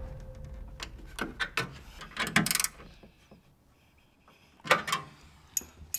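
Wrenches tightening the license-plate bolts: short bursts of metallic clicking and scraping from a ratcheting wrench, with a pause of about a second and a half in the middle and another short burst near the end.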